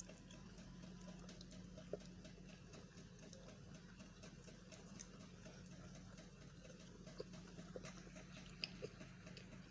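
Near silence: room tone with a faint steady low hum and a few scattered faint ticks, the clearest about 2 seconds in and near the end.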